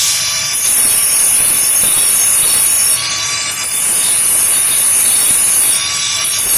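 Continuous abrasive grinding with a loud high-pitched squeal as the emery grinding stones of a chakki flour mill are dressed. The squeal breaks off briefly about three seconds in and again near the end.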